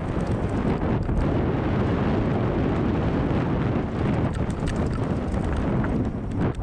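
Mountain bike riding fast down a dirt trail: tyres rumbling over the ground, with many short clicks and knocks from the bike rattling over roots and bumps.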